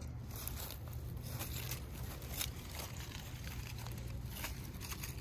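Low wind rumble on the microphone, with a few short crackling rustles of dry leaves and grass.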